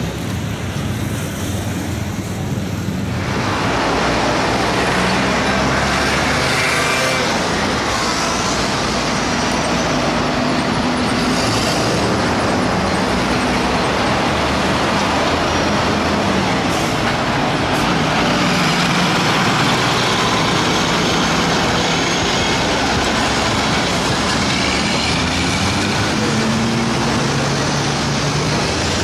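Heavy tow truck's diesel engine running as it moves slowly through street traffic, amid steady city traffic noise that grows louder and fuller about three seconds in.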